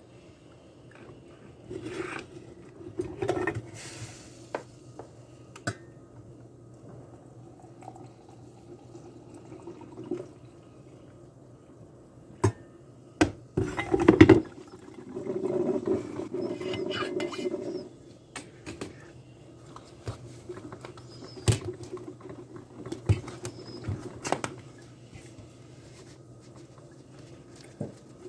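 Kitchen clatter: scattered clinks and knocks of dishes and cups over a steady low appliance hum, with a few seconds of running or pouring liquid about halfway through.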